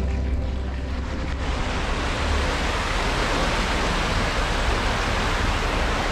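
Water rushing and churning into a canal lock chamber as it fills, with steady turbulent noise from the culverts and leaking gates. A held music note fades out in the first second or two.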